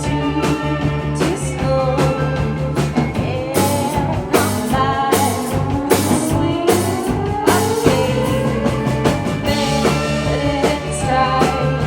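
A rock band playing live, with drums, bass, guitar and singing. Through the middle, a long slide rises steadily in pitch over about four seconds.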